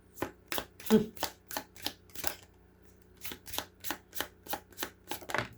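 Tarot deck being shuffled by hand: a run of quick card slaps, about three a second, with a short pause a little past the middle.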